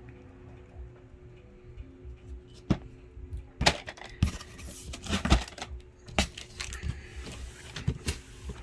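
Boxed fireworks being handled and shifted: a string of irregular knocks and thumps of cardboard boxes being moved and set down, with rustling between them.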